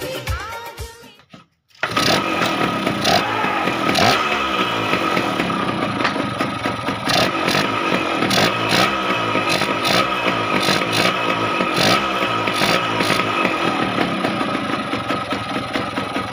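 Song fades out within the first second or two. Then a motorcycle engine runs steadily for the rest, with a constant whine over its rapid firing.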